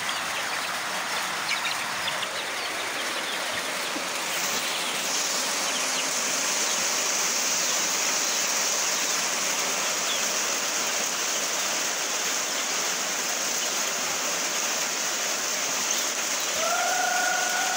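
Chickens feeding amid a steady rushing background noise, with a high steady hiss joining about four seconds in. Near the end one chicken gives a single short pitched call.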